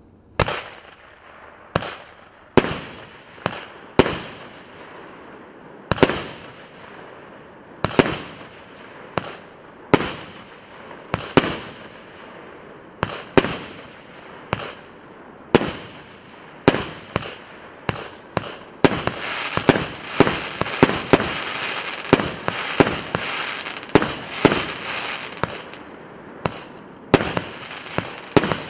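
Consumer firework battery (cake) firing shot after shot: sharp bangs about once a second with crackling in between. In the second half the crackling thickens into a dense, continuous sizzle for several seconds.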